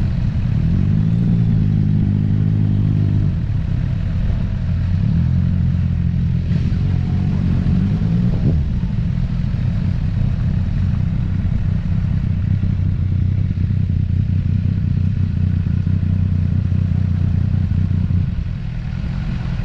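Motorcycle engine under way, its pitch rising twice as it pulls up through the revs, then holding at a steady cruise until it eases off near the end.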